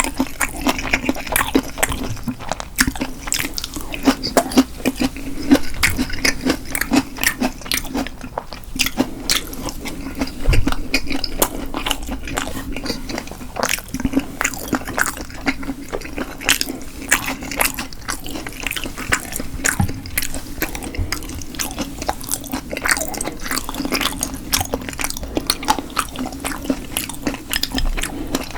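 Close-miked chewing and biting of food, a dense run of quick wet mouth clicks.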